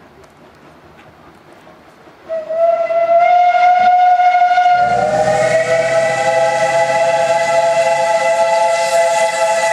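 Steam whistle of a narrow-gauge Mallet steam locomotive (Harzer Schmalspurbahnen 99 5902), sounding a long loud blast about two seconds in. Some three seconds later it swells into a fuller chord of several notes, held steady.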